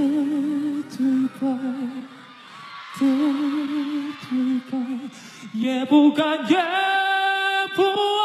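Male singer's live vocal with little accompaniment: short phrases with a wavering vibrato, then in the second half a long held note that climbs higher and is still held at the end.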